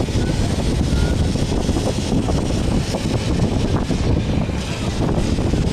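Heritage electric tram running along its track, heard from an open passenger deck: a steady rumble of wheels on rail and running gear, with wind on the microphone.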